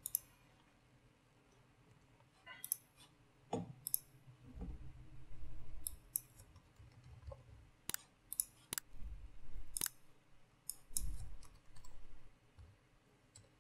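Computer mouse clicks and keyboard keystrokes, quiet and irregular: scattered sharp clicks with a few soft low thuds between them.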